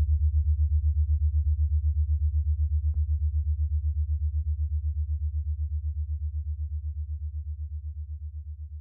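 A low, steady droning tone with a fast even pulse, about six or seven beats a second, fading slowly toward the end. A couple of faint clicks sound over it.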